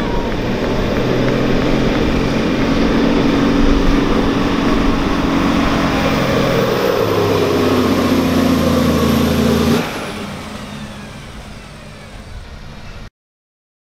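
Semi truck's diesel engine running hard under load as it drags a weight-transfer pulling sled, its note stepping slightly lower about seven seconds in. The sound cuts off abruptly near ten seconds to a quieter background, then to silence.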